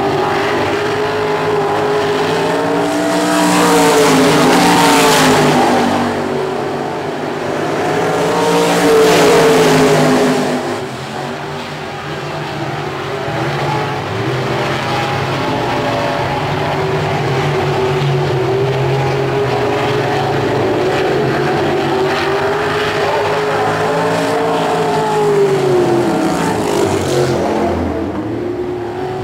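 Several winged 305 sprint cars racing on a dirt oval, their 305-cubic-inch V8 engines rising and falling in pitch as they go around. The engines are loudest as the pack passes close, around four to six seconds in and again around nine seconds.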